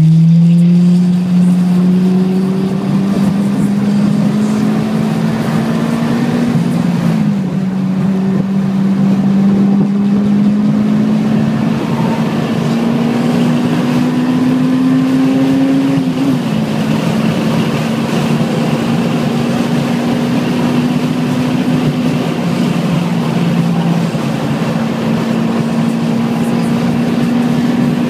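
Honda S2000's four-cylinder engine under hard acceleration on a race track, its pitch climbing steadily and dipping briefly about seven seconds in and again around sixteen seconds in as it shifts up a gear. A steady rushing noise runs underneath.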